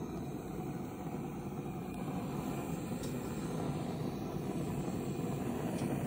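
Hand-held canister gas torch burning with a steady, low rushing flame noise as its flame is played over wet poured acrylic paint to heat it.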